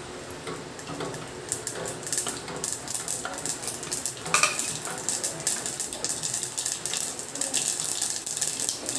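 Mustard seeds popping and crackling in hot oil in a steel pot: a dense run of sharp pops that builds up about a second and a half in. This is the tempering at the point where the seeds have spluttered and the oil is ready for the garlic.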